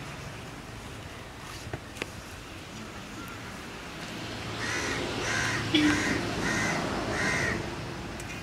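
A crow cawing five times in a row, evenly spaced about two-thirds of a second apart.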